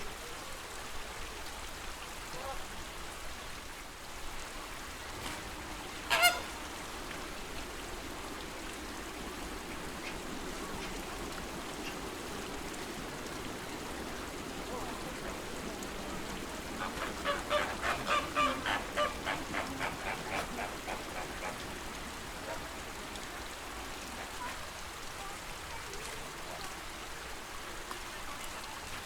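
Flamingos honking: a run of quick honks, about three a second, lasting some four seconds past the middle, over a steady lake-water hiss. A single sharp, short sound stands out about six seconds in.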